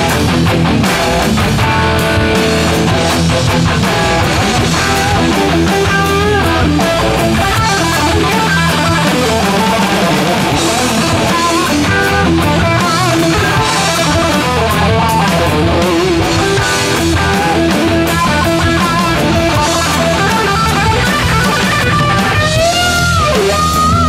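Gibson Les Paul electric guitar played through a Line 6 Helix amp-modelling preset, a driven blues-rock lead line of quick runs, with string bends near the end.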